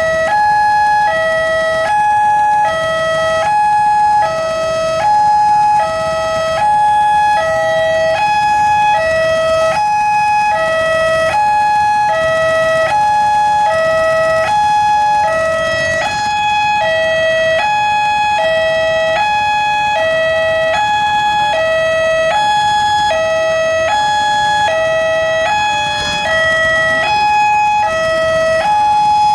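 Railway level crossing warning alarm sounding: an electronic two-tone signal alternating steadily between a lower and a higher note, about one change every half second or so, warning that a train is approaching and the barriers are down.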